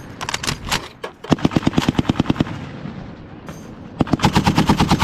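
Machine guns firing in rapid bursts, about a dozen shots a second: a short run of shots at the start, a long burst about a second in, and another burst starting near the end.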